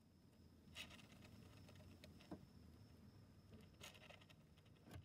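Faint scratching in litter sand by a Djungarian hamster shifting in its toilet, with a few soft clicks of grains over low room noise.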